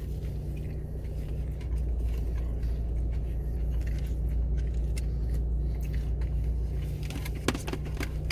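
Steady low hum of a car idling, heard from inside the cabin, with a few sharp clicks near the end.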